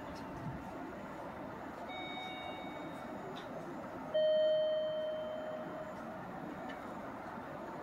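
Steady background hum of a railway station platform between trains. About four seconds in, a single clear pitched tone, like an electronic chime, starts sharply and fades over about two seconds.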